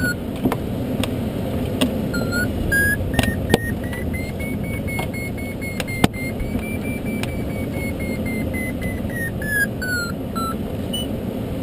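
Glider variometer tone piping over the steady rush of wind past the open cockpit. The tone steps up in pitch to a held high note in the middle, then falls back in short beeps near the end, tracking the climb rate in gusty ridge lift. A few short clicks come through as well.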